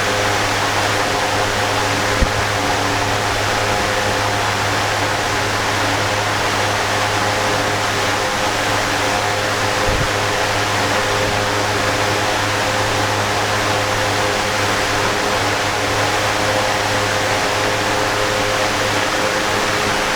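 Electric fan running steadily: an even rush of air over a constant low motor hum, with one small click about two seconds in.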